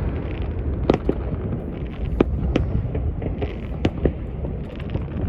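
Fireworks going off: scattered sharp bangs and pops at irregular intervals over a steady low rumble.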